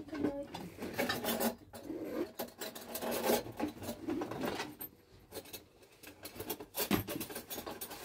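Household items being rummaged through in a plastic crate: irregular rustling and scraping with small knocks.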